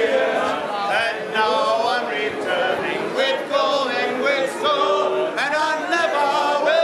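A crowd of voices singing together without instruments, a chant-like singalong with overlapping, shifting pitches.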